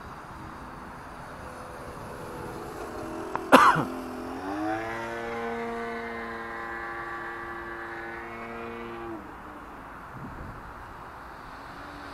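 Electric motor and folding propeller of an F5J electric RC glider running a powered climb: a pitched whine comes up about four seconds in, holds steady for about five seconds and cuts off. Just before it, a single sharp loud burst.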